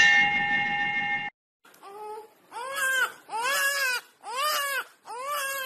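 A short ringing tone for about a second, then a man's voice fake-crying like a small child: about five rising-and-falling wailing sobs in a row.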